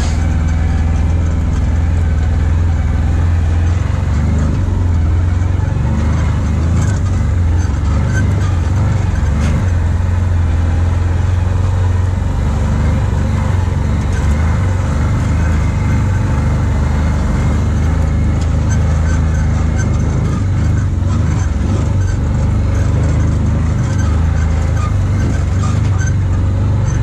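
Side-by-side UTV engine running steadily under way, heard from the cab, with a few light knocks from the rough trail.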